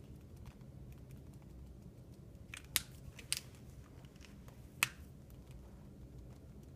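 Light ticks and three sharp plastic-like clicks, two close together about three seconds in and one near five seconds, from hands handling a marker and its cap over a tile floor.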